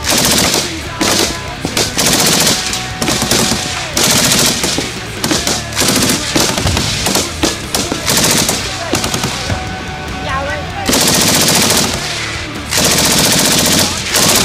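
Belt-fed light machine gun firing bursts of automatic fire at close range, several short bursts with brief pauses, then a longer burst of about two seconds near the end.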